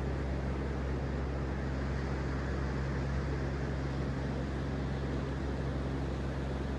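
Ocean surf on a beach, a steady, even rush that is deep at the low end, with no single wave standing out.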